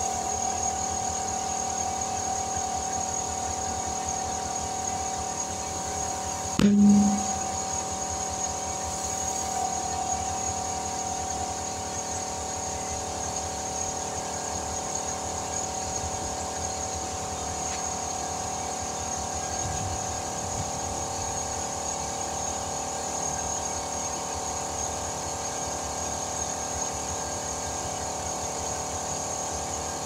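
Tire being inflated through a clip-on air chuck on the valve stem, with a steady, even hum from the compressed-air supply. A short, loud thump comes about seven seconds in.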